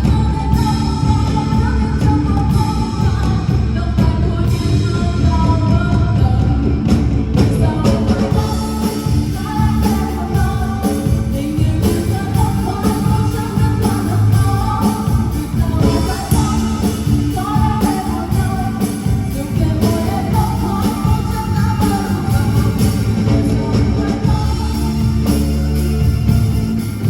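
A singer singing a pop-rock song over a live band with guitar, bass and drums, played through a PA during a sound check.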